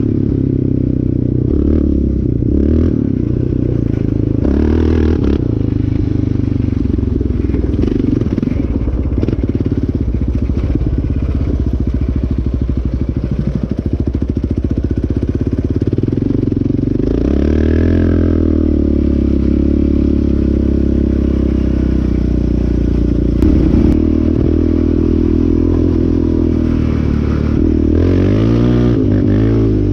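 Yamaha Raptor 700R's single-cylinder four-stroke engine running as the quad is ridden, its pitch rising and falling with the throttle. There is one sharp knock about three-quarters of the way through.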